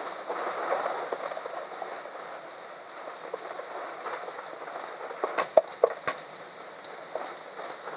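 Cooked rice tipped from an aluminium pot into a hot wok of sauce over a gas flame, under a steady hiss of the wok sizzling and heavy rain. About five to six seconds in, a few sharp clicks and knocks as the pot and hand scrape the last rice into the wok.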